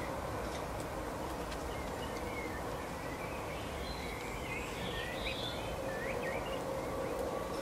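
Small songbirds chirping faintly over a steady outdoor background hiss, with a faint steady hum underneath. The chirps come mostly in the middle of the stretch.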